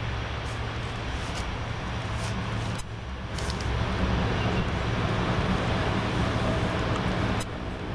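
Four-engine Lockheed C-130H Hercules turboprops (Allison T56) running on the ground with a steady low propeller hum, over the hiss of heavy rain. The engine sound swells about halfway through and drops back sharply near the end.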